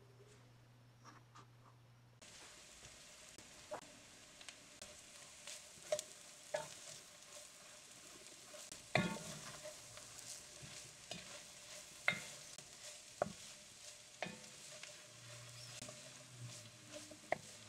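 Food sizzling in an enameled cast iron pot while a utensil stirs it. The sizzle comes up about two seconds in, and the utensil knocks and scrapes against the pot every second or two.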